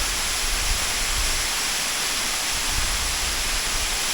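Waterfall pouring in full flow, an unbroken steady rush of water. The stream is swollen by heavy rain.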